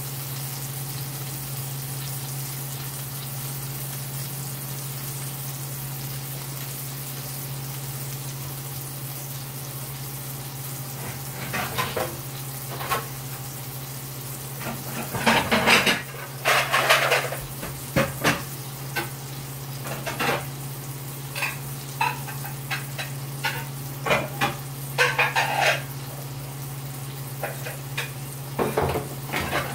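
Pork chop searing in a hot cast-iron skillet: a steady sizzle, with irregular pops and crackles of spitting fat from about a third of the way in. A steady low hum runs underneath.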